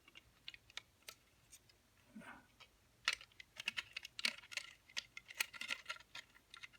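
Light, irregular clicks and scrapes of a small metal tension tool being worked into the keyhole of a three-lever mortise lock, against the lock's levers and bolt. The clicks are sparse at first and come thicker and louder from about halfway through.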